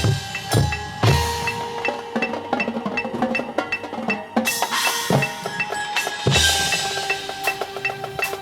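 Marching band percussion section playing: a quick run of sharp wood-block and mallet strikes with a few deep bass drum hits and cymbal crashes.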